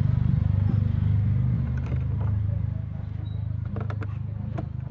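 A vehicle engine running with a steady low drone, with a few light clicks and knocks of a socket wrench turning a screw in a washing machine's plastic base.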